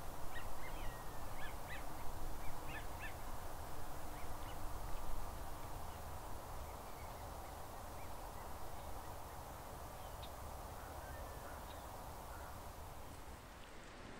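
Geese calling, many short high honks in the first five seconds, then fewer and fainter, over a steady low background rumble and hiss.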